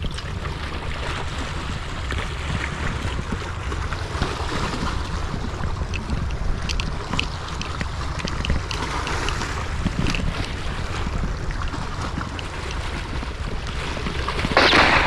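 Wind buffeting the microphone over the wash of sea waves against the shore rocks, with a brief louder rush of noise near the end.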